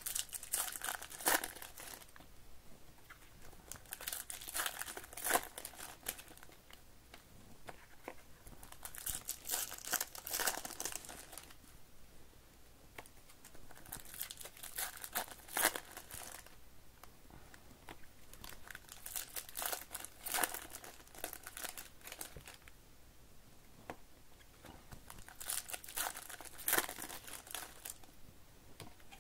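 Foil wrappers of Topps baseball card packs crinkling and tearing as packs are ripped open, in six bursts of a couple of seconds each, about every five seconds.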